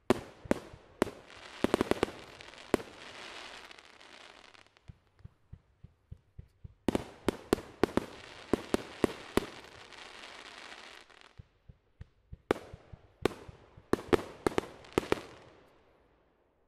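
Aerial fireworks going off in three volleys of sharp bangs from shots and bursts. Each volley is followed by a long hiss that dies away, the last fading out near the end.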